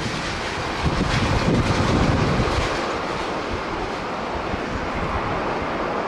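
Strong gusty wind buffeting the microphone, heaviest about one to two and a half seconds in, over the steady roar of a Boeing 737-800 jet airliner's engines on landing approach.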